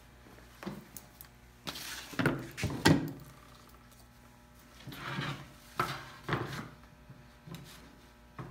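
Wooden board being shifted and set down on a wooden workbench: a series of knocks and scrapes of wood on wood in two clusters, the loudest about three seconds in.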